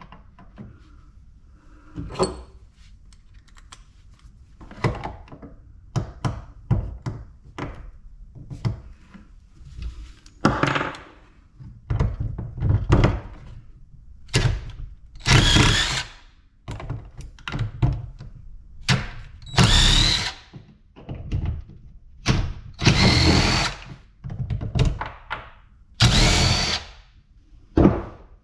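Power drill running in short bursts of about a second each, six or so times, while metal parts are being taken apart. Between the bursts come repeated knocks and clunks of tools and parts being handled.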